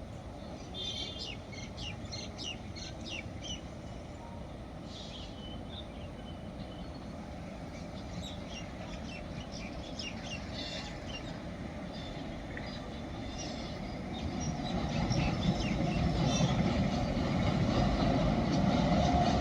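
Birds chirping over a faint low rumble, then the rumble of an approaching freight train hauled by two WAG-9HC electric locomotives, growing steadily louder over the last five seconds.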